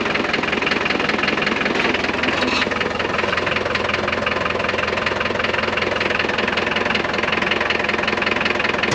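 McCormick D430 tractor's diesel engine idling steadily, with an even, fast firing rhythm.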